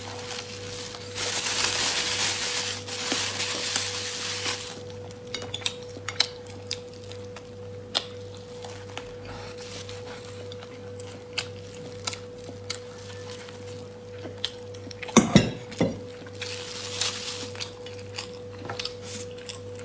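Close-up eating sounds: crisp flatbread being bitten and chewed, with the plastic bag around it crinkling, and scattered clicks and clinks of dishes. A few heavier knocks of a plate on the tray come about fifteen seconds in, over a steady electrical hum.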